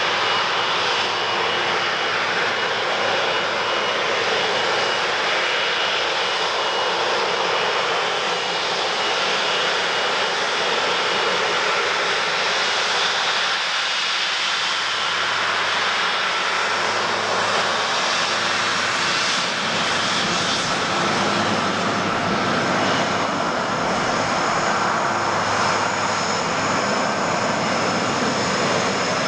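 Jet airliner engines running on landing: a steady rushing noise with thin, high whining tones over it.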